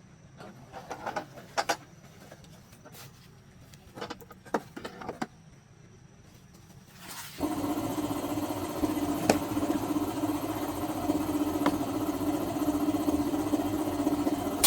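A few light clicks and knocks of handling, then about seven seconds in an engine starts and runs steadily with a low, even hum.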